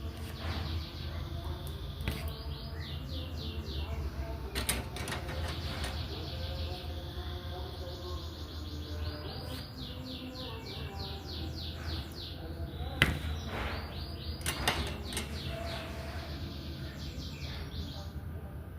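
Diamond painting in progress: sharp clicks and taps of the drills and tools, with a quick high chirping trill repeating four times over a low steady hum.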